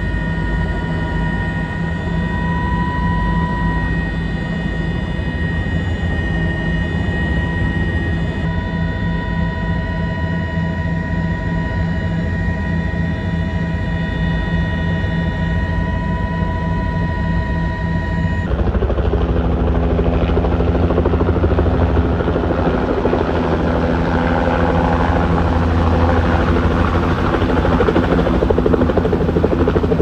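Helicopter in flight: a steady turbine whine over the rhythmic chop of the rotor blades. About eighteen seconds in the sound cuts to a harsher, noisier rotor sound.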